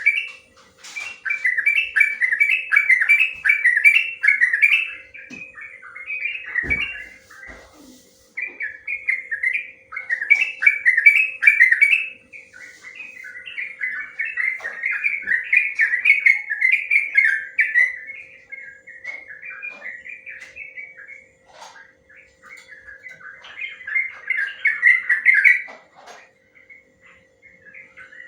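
Sooty-headed bulbul (trucuk) singing long runs of quick, warbling notes in several bursts a few seconds long, with short pauses between, over a faint steady hum.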